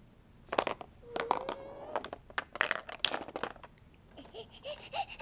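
Hard plastic Mouse Trap game pieces clicking and clattering as they are handled and fitted on the board, a quick run of sharp knocks that stops about three and a half seconds in. A child's brief hum and small voice sounds come in between and near the end.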